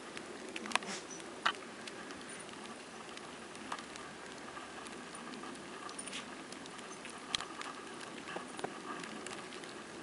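Outdoor snowfall ambience: a faint steady hiss with scattered light ticks and pats.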